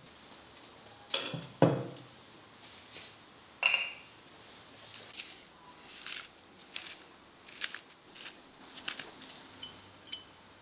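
Earthenware handled on a wooden table: two thumps a little after a second in and a ringing ceramic clink, then a run of short scratchy grinds from a hand pepper grinder twisted over a salad, and small clicks of a metal spoon in a clay pot near the end.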